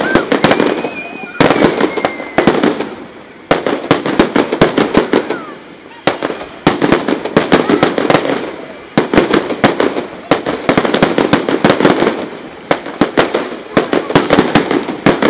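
Fireworks display: loud volleys of rapid crackling bangs, clusters coming every second or two and fading between, with a faint thin whistle in the first couple of seconds.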